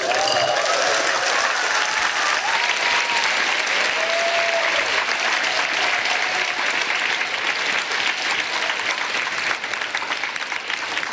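Sustained applause from a large gathering of delegates, starting suddenly, with a few cheers and whoops in the first several seconds, marking the formal close of the conference.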